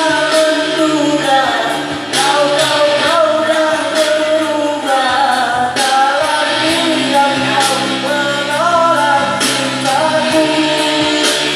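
A song with a sung melody over instrumental accompaniment and a steady beat.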